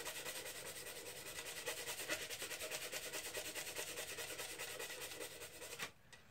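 Hand sanding with 220-grit sandpaper wrapped on a putty knife, rubbed quickly side to side against the finished wood of a mandolin body under the fretboard extension: faint, rapid, even strokes that stop just before the end.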